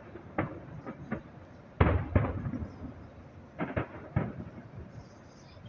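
Aerial firework shells bursting in a string of about six bangs, the loudest about two seconds in, each with a short rumbling tail.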